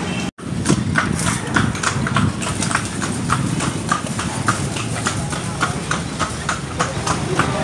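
A horse's freshly shod hooves clip-clopping on an asphalt street at a walk as it pulls a kalesa (horse-drawn carriage). The hoofbeats come in an even rhythm of about three a second.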